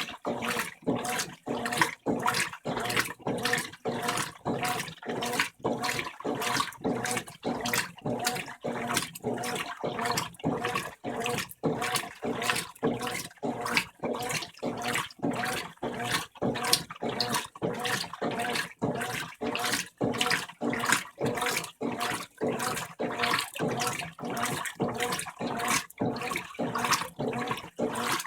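Brastemp 15 kg top-load washing machine agitating during its rinse, churning water back and forth in an even rhythm of about two strokes a second.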